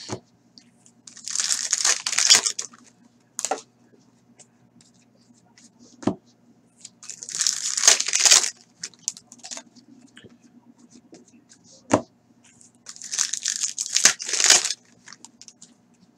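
Hockey card pack wrappers being torn open and crinkled by hand, in three rustling bursts several seconds apart, with a few sharp clicks in between.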